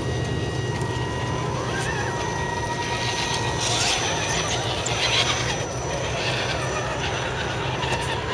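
Electric motors and gearboxes of scale RC crawler trucks whining as the trucks climb, with bursts of tyres scrabbling on dirt and rock between about three and a half and five and a half seconds in. A steady low hum runs underneath.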